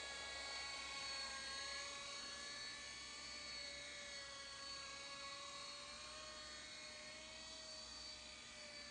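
Hubsan H101D toy RC helicopter's small electric main and tail rotor motors whining in flight: a very smooth, steady high-pitched buzz whose pitch wavers slightly with the throttle, growing a little fainter toward the end.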